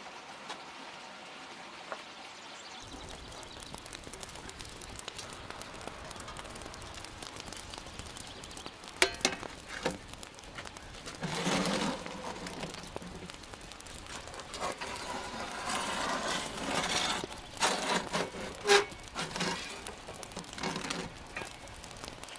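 Metal baking trays scraping and clanking on the stone floor of a wood-fired brick oven as they are pushed in with a long-handled hook, over the crackle of the wood fire. There are a few sharp clanks and two longer stretches of scraping, one about halfway and one near the end.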